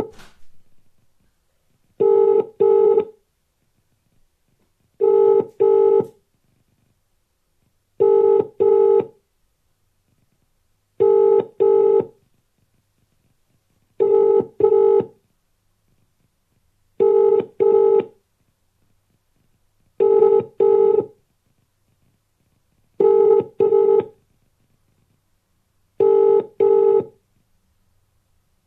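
UK telephone ringing tone heard by the caller: a double ring every three seconds, nine times, with the call going unanswered.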